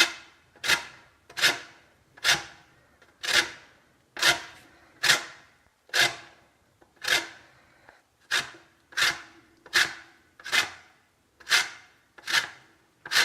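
Lemons being rubbed on a fine metal grater to zest off only the yellow peel: a regular series of short rasping strokes, a little faster than one a second.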